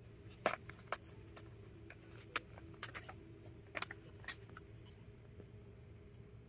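A plastic single-serve drink pouch being handled and torn open by hand: a scatter of sharp crinkles and clicks through the first four seconds or so, then it falls quiet apart from a faint steady low hum.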